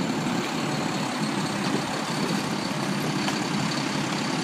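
Engines of a sanitation garbage truck and a street sweeper running steadily, a low rumble with a faint high whine above it.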